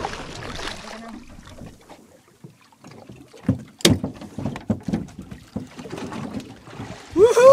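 Scattered knocks and clicks from handling fishing gear on a small boat, with one sharp click about four seconds in. Near the end a loud, drawn-out call begins, rising and then falling in pitch.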